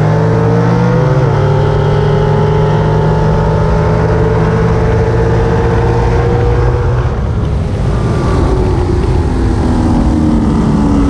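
A car engine running steadily, with a short rise in pitch about a second in and tones gliding slowly down over the last few seconds.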